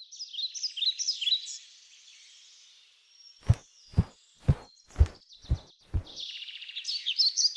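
Songbirds singing in quick high chirps. In the middle they are broken by six heavy thumps, evenly spaced half a second apart. The birdsong comes back and grows louder near the end.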